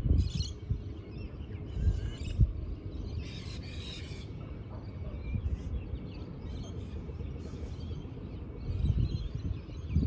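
Birds calling outdoors: several short high calls, the longest and loudest a harsh call about three to four seconds in, over wind buffeting the microphone as a low rumble that gusts at the start, around two seconds in and near the end.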